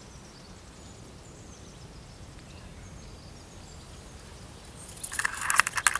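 Quiet outdoor background with small birds chirping faintly in the distance, then about five seconds in a sudden loud burst of rapid rustling clicks and crackles.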